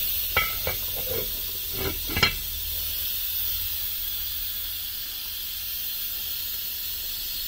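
The lid of the Instant Dutch Oven's enamelled cast-iron pot clinks against the rim a few times in the first couple of seconds as it is set in place. Over and after this there is a steady hiss from the simmering pot.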